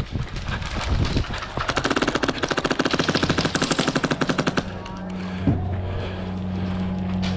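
Airsoft gun fire: a few irregular pops, then a rapid full-auto burst of about three seconds. A steady low hum follows.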